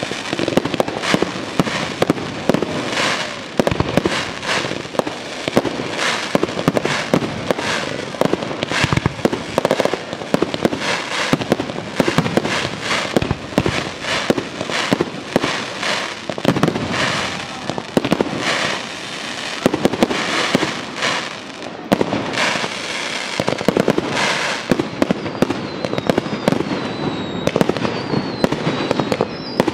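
Aerial fireworks display: shells bursting in rapid, irregular succession with crackling stars. The reports run on thick and fast, and a high wavering whistle joins near the end.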